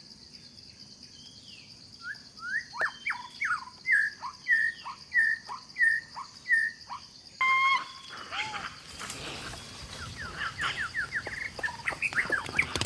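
A bird calling a run of about eight loud repeated swooping notes, roughly one every two thirds of a second, over a steady high insect drone. About halfway through the background changes abruptly and scattered short chirps follow.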